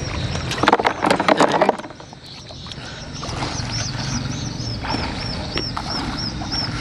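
Freshwater clams clattering into a plastic basin in a quick burst of clicks for about a second, then a high chirping call repeated about four times a second.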